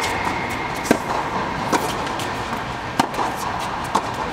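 Tennis rally: four sharp racket strikes and ball bounces, roughly one a second, over a steady background hiss.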